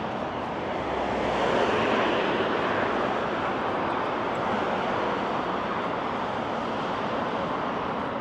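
Road traffic going past: a steady rush of tyres and engines that swells about a second in and then holds.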